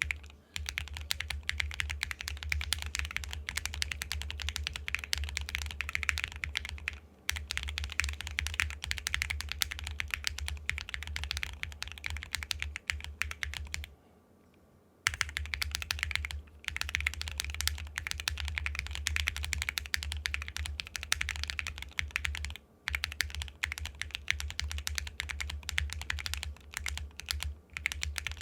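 Fast, continuous typing on an IV Works Av4 Claymore mechanical keyboard with an aluminium plate, Zaku switches and XMI keycaps: a dense run of key clacks. It breaks off for about a second about halfway, with a few shorter pauses elsewhere.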